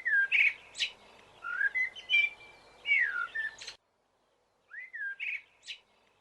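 A songbird singing short whistled phrases that swoop up and down, mixed with quick high chips and one briefly held whistle. The song cuts off abruptly partway through, and after a second of silence the same opening phrase plays again.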